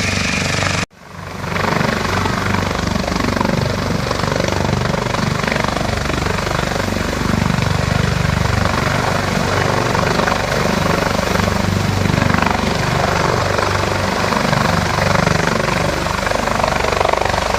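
Search and rescue helicopter running loud and steady, its engines and rotor making a continuous rushing noise with a low, pulsing beat. About a second in the sound cuts out abruptly and swells back within a second.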